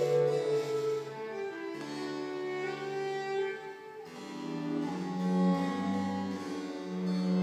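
A baroque chamber ensemble playing: harpsichord with violin, recorder and a low bowed string instrument in sustained notes. The music softens briefly about four seconds in, then swells again.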